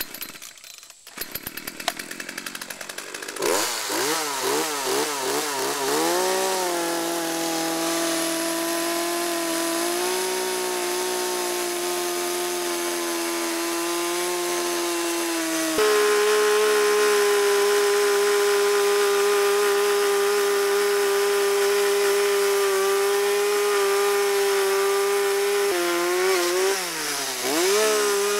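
Small two-stroke gasoline chainsaw being pull-started: a couple of seconds of cranking clatter, then it catches and revs unevenly before settling to a steady run. About halfway through the throttle opens to a higher, louder pitch as the chain cuts into a pecan limb about five to six inches thick. Near the end the pitch dips and wavers, then rises again.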